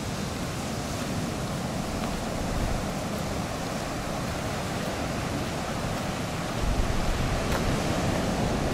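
Strong wind buffeting the microphone, a steady rushing noise with low rumbling that grows stronger about two-thirds of the way through, over surf breaking on the beach.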